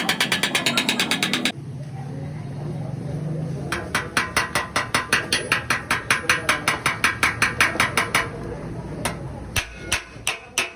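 Hammer tapping quickly and evenly on a car's sheet-metal body panel, about four to five strikes a second. It comes in two runs with a pause between them, then a few slower, spaced taps near the end.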